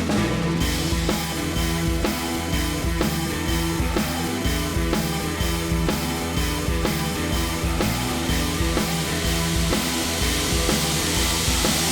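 Background music: a rock track with drum kit and a steady beat.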